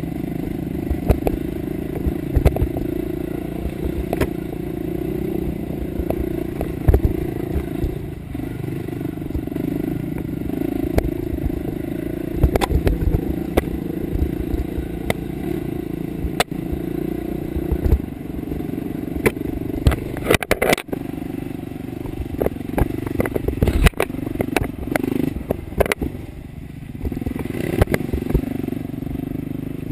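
Dirt bike engine running close up at part throttle on a rough trail, with frequent knocks and clatter as the bike goes over rocks and bumps. The engine eases off briefly near the end, then picks up again.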